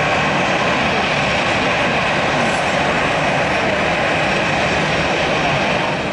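Airbus A320-family airliner's jet engines running at taxi power close by: a steady rushing noise with a high engine whine held over it.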